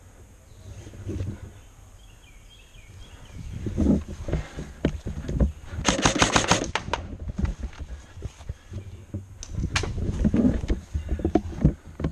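Airsoft rifle firing a rapid burst of sharp clicking shots about six seconds in, with a few more single shots a few seconds later. Low thumps and rumble from movement run underneath.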